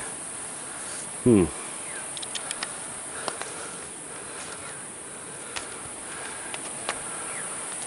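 A steady high-pitched chorus of insects chirring in the woods, with a few faint clicks and one short falling vocal sound about a second in.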